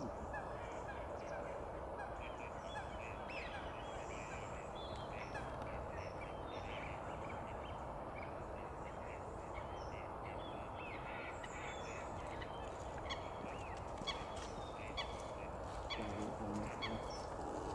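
A chorus of many birds calling over open water: a dense, continuous background of bird chatter with honk-like waterfowl calls and many short high calls, which grow busier and a little louder near the end.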